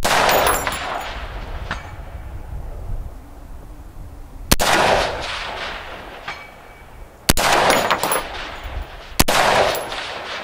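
Four rifle shots from an AR-15 with a 24-inch .223 Wylde barrel, firing 75-grain .223 rounds, spaced unevenly a few seconds apart, each followed by a long echoing tail. Wind rumbles on the microphone throughout.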